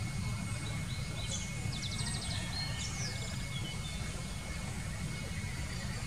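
Small birds calling over a steady low rumble: several thin, high chirps and a quick run of rapid repeated notes in the first half, then mostly the rumble alone.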